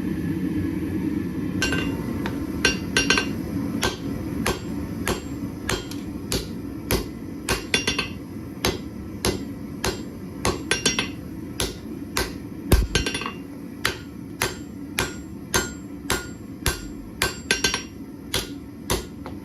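Hand hammer striking hot steel on an anvil, forging out the handle of a kitchen knife blade, with ringing strikes at about two blows a second that begin about two seconds in. A steady low rumble runs underneath.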